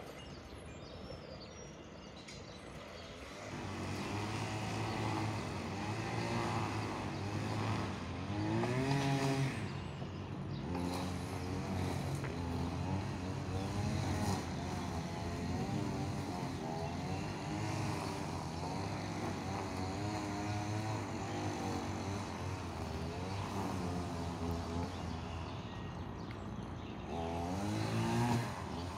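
An engine drone with a wavering pitch. It grows louder about three seconds in and swells again near the end.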